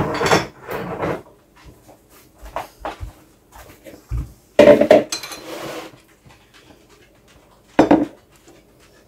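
Kitchen clatter of pots and utensils: several separate knocks and clanks, the loudest about halfway through, then a spoon scraping against a steel soup pot as the soup is stirred near the end.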